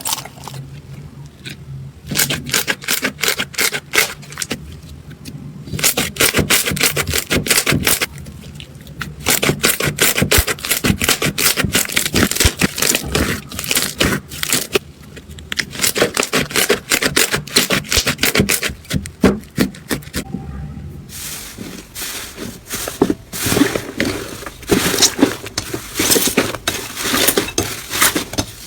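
Slime being squeezed and worked by hand, giving dense crackling and popping in bursts with short pauses between them.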